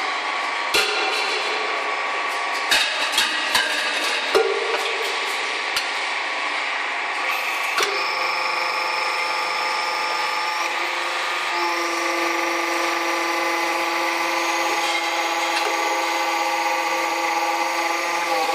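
Fire extinguisher cylinder deep drawing press running, with a steady mechanical din and several sharp metallic knocks in the first half. From about eight seconds in, a steady whine of several tones holds over the noise.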